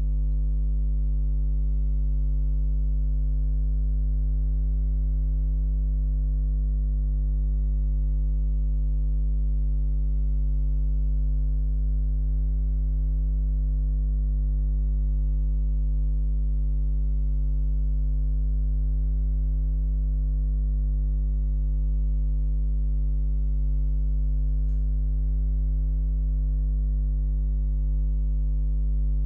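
Steady, low electrical mains hum with a stack of evenly spaced overtones, unchanging in pitch and level, picked up in the recording's audio chain. A faint click about 25 seconds in.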